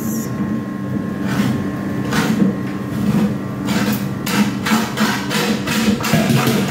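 A series of sharp knocks, a few at first and then about three a second from about four seconds in, over a steady low hum.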